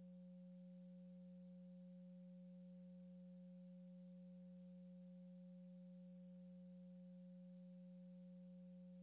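Near silence: a faint, steady low hum that does not change.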